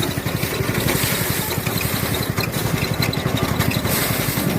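Small engine of a paddy-threshing machine running steadily, with a fast, even firing beat.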